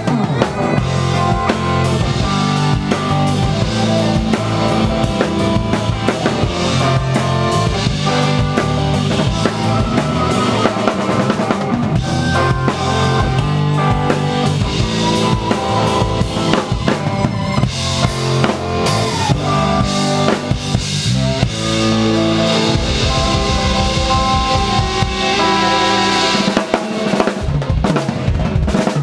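Live band playing a reggae song, the drum kit close and loudest, with the snare, kick drum and cymbals over bass and guitar.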